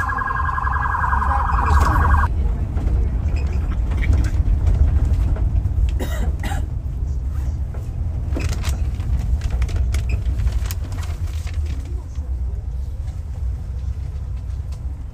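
A rapidly warbling electronic alarm tone, like a car alarm or siren, sounds for about the first two seconds and then cuts off abruptly. It plays over a steady low rumble of city street noise with scattered clicks and knocks.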